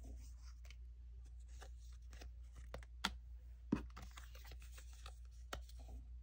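A stack of die-cut stickers being shuffled and handled, their edges rustling and clicking against one another, with two sharper clicks a little past halfway. A steady low hum runs underneath.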